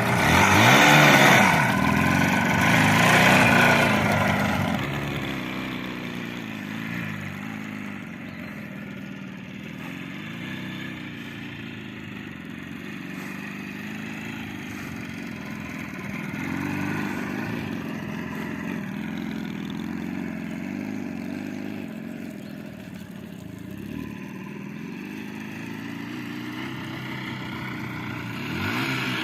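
Jawa 638 motorcycle's two-stroke twin engine, loud and revving in the first few seconds, then running quieter with its pitch rising and falling, and growing louder again near the end.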